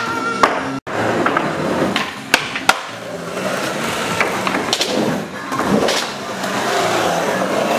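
Skateboard wheels rolling on a smooth concrete floor, with two sharp clacks of the board about two and a half seconds in and a few lighter knocks later.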